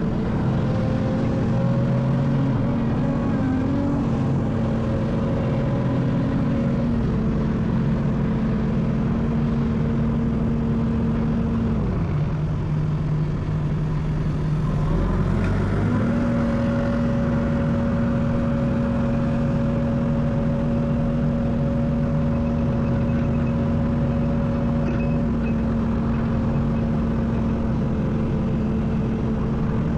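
Excavator's diesel engine running steadily under working load. About halfway through, its note drops lower for a few seconds, then rises back to the same pitch.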